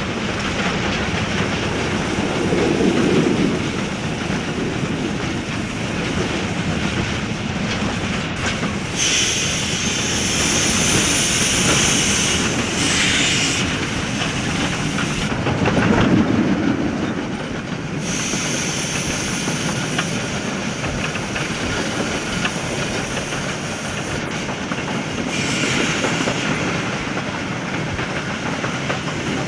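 Steam train running on the rails: continuous wheel clatter over the track, with high hissing steam coming in three times, about a third of the way in, past the middle and near the end.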